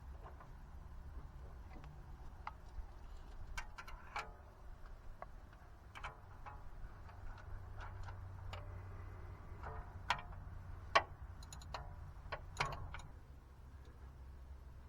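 Hand tools clicking and clinking against metal under a truck: irregular sharp taps and clicks, a few with a short metallic ring, the loudest about ten and eleven seconds in, over a low steady hum.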